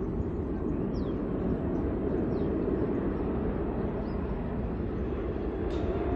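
Distant Boeing 747-8 turbofan jet engines: a steady, deep rumble as the jumbo jet approaches low over the runway. A few faint high chirps sound above it.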